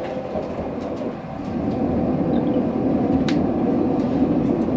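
Dublin Luas tram running, heard from inside the passenger cabin: a steady rumble of wheels and motors that grows louder about a second and a half in.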